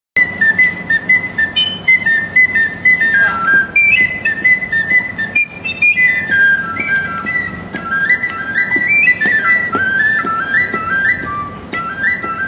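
Lively instrumental music: a fast, high melody of quick stepping notes over a steady tapping beat, starting abruptly out of silence.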